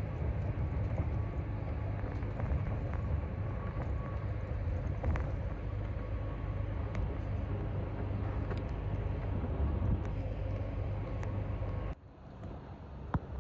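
Steady low rumble of a coach bus on the move, heard from inside the cabin, with scattered light clicks and rattles. Near the end it cuts suddenly to a quieter rumble.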